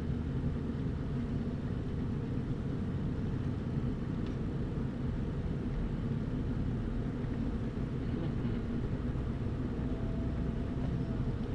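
Steady low drone of an RV's engine and road noise heard inside the cab while driving, on what looks like a Ford Super Duty chassis.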